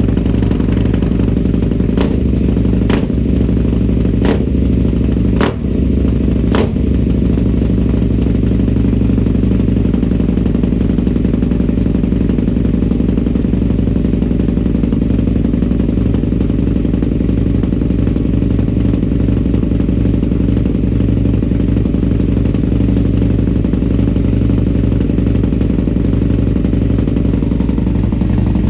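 Husqvarna Nuda 900 R's parallel-twin engine running at a steady idle through an aftermarket MOA exhaust silencer. A handful of sharp clicks sound over it in the first several seconds.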